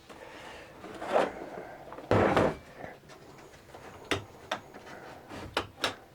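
Toolbox drawers sliding open and shut, the loudest slide about two seconds in, followed by several short sharp clicks and knocks.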